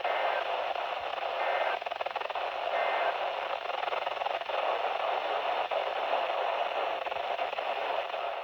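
Radio static: a steady hiss from a radio receiver with no broadcast speech on it, with a few faint, brief whistling tones in the first few seconds.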